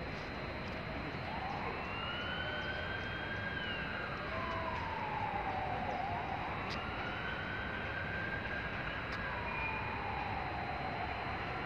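A siren wailing, its pitch rising and falling slowly, about one sweep every four to five seconds, over a steady background of city noise.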